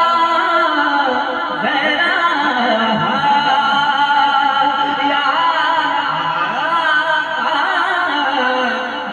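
A man singing a naat through a microphone, drawing out long, wavering notes that slide from pitch to pitch with no words clearly sung.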